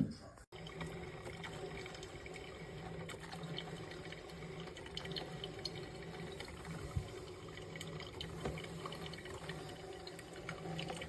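Water running in a steady trickle, with faint drips.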